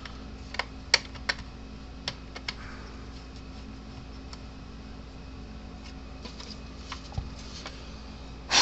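Scattered small clicks and knocks of a fence charger's parts being handled and slid into place during reassembly, with a louder knock near the end, over a steady low hum.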